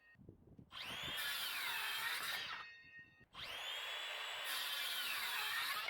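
Circular saw cutting through timber, two cuts of about two seconds each with a short break between, the saw's pitch dipping and rising as it bites into the wood.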